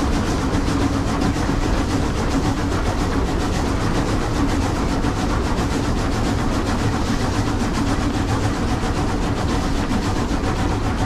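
Antique steam train hauled by locomotive No. 6 running along the track: continuous running noise of the wheels on the rails, steady in level throughout.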